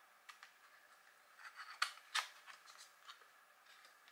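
Small cardboard gift box being handled and opened: faint scattered clicks and scrapes of the lid and packaging, busiest about two seconds in.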